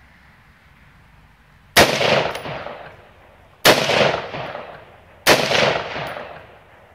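Three single shots from a semi-automatic AR-15 rifle chambered in 5.56/.223, fired deliberately a little under two seconds apart, the first almost two seconds in; each sharp crack dies away over about a second.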